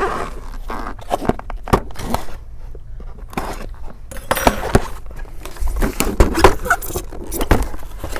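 A cardboard motherboard box's sealing tape being cut open and the box handled: scattered sharp clicks, scrapes and rustles of the packaging.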